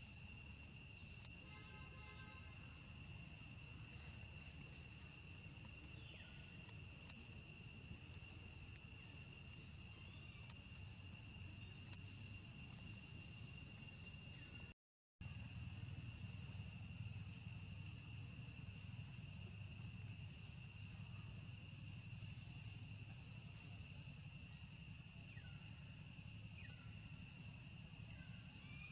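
Steady insect chorus: a high, unbroken drone at two pitches over a low background rumble, with a few faint short chirps. The sound drops out completely for a moment about halfway through.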